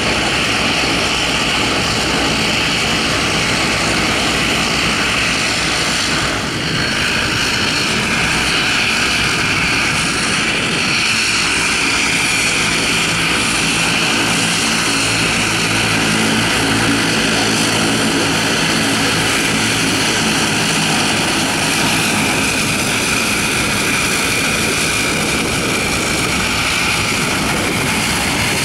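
Bombardier CL-415 water bomber's two Pratt & Whitney Canada PW123AF turboprop engines running steadily as the aircraft taxis. The sound is a high turbine whine over the propeller drone.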